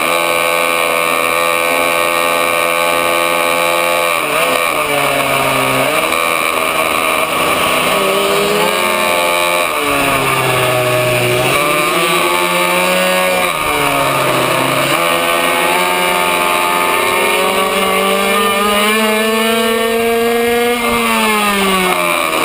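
A racing minibike's small two-stroke engine, heard from on board, revving up along each straight and dropping in pitch into each corner, several times over. In the second half it climbs for several seconds, then falls off sharply near the end, with steady wind hiss throughout.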